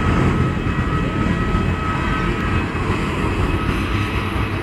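Jet engine noise from a Boeing 737-300 climbing away after takeoff: its CFM56-3 turbofans make a steady rumble with a thin whine that fades out about halfway through.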